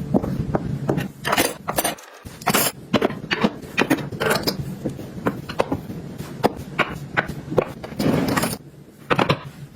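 Small hard objects being handled, set down and slid about: a busy run of clicks, taps, clinks and scrapes.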